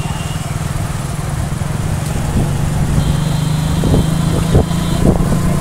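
Motorcycle engine running steadily under way, a low pulsing drone with road and wind noise. A few light knocks in the second half, and a faint high tone for about two seconds midway.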